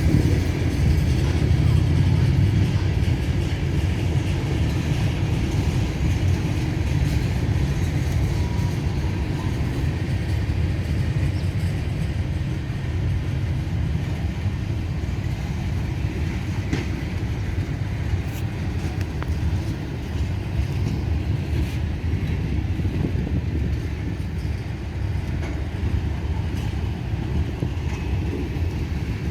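Long CSX freight train rolling past slowly, at about 10 mph under a slow order. It makes a steady low rumble, with a few faint clicks scattered through it.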